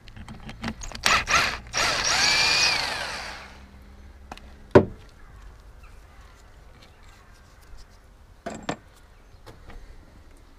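A handheld power tool whirs for about a second and a half, its pitch rising and then falling, after a few sharp clicks. A single sharp knock follows about two seconds later, and a couple more knocks come later on.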